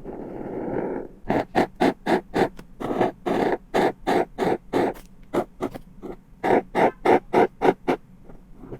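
Yellow-coloured water making a quick series of short, wet squelching bursts, about three a second, after a second of steady hiss.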